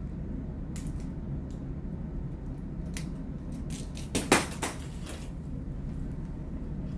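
Sharp clicks and clatter of the thin black rod sections and fittings of a draft-survey measuring rod being handled and fitted together, in a quick burst about four seconds in, with a few single clicks before it. Under them is a steady low hum of ship's machinery.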